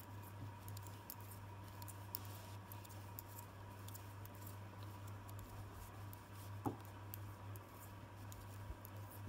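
Faint clicking and tapping of knitting needles and rustling wool as stitches are knitted by hand, with one sharper click about two-thirds of the way in, over a steady low hum.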